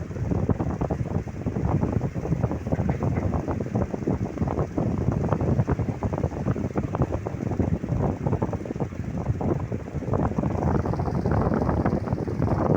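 Venti Delta Gold 60 cm wall fan running, its airflow buffeting the microphone in an uneven, gusty rumble.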